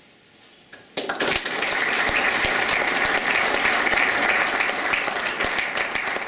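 After a brief quiet moment, an audience breaks into applause about a second in, many hands clapping densely and steadily.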